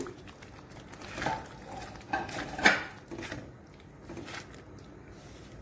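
Spoon stirring sliced onion and capsicum into thick curry gravy in a metal kadhai, scraping and knocking against the pan a few times, the loudest knock about two and a half seconds in.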